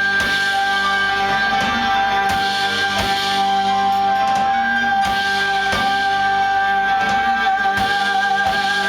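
Live band music: one long held note over a steady accompaniment, with a few sharp drum hits.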